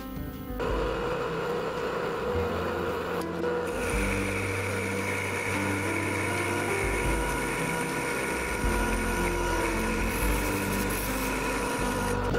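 Metal lathe running steadily with a small workpiece spinning in the chuck, starting about half a second in. A higher steady whine joins a few seconds later.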